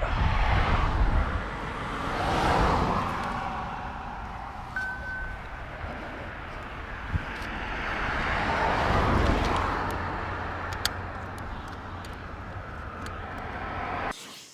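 Road traffic passing at speed: two vehicles swell up and fade away, one about two seconds in and another around eight to nine seconds, over a steady low rumble.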